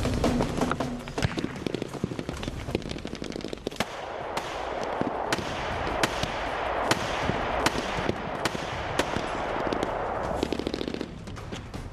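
Battle gunfire: many rapid, irregular rifle and automatic-weapon shots, with a noisy rushing swell that builds from about four seconds in and drops away near the end.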